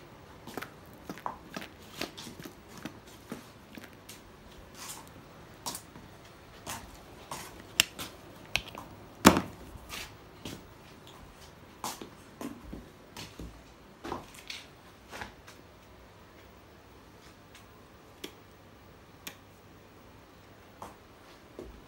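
Footsteps and light clicks on a concrete floor, irregular and about two a second at first, then sparser, with one louder knock about nine seconds in.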